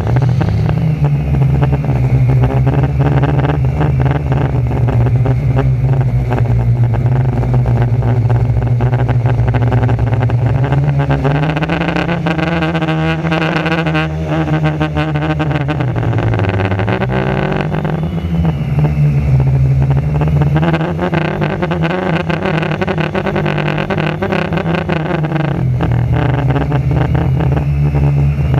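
Quadcopter's electric motors and propellers heard from an onboard camera: a steady buzzing hum whose pitch dips and rises as the throttle changes, dipping about two-thirds of the way through and again near the end. Wind buffets the microphone in gusts.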